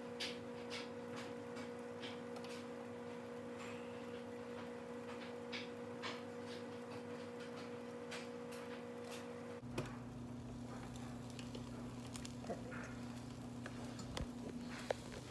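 Panini press cooking a buttered grilled cheese: faint, irregular crackling ticks over a steady low hum, with a sharp click near the end.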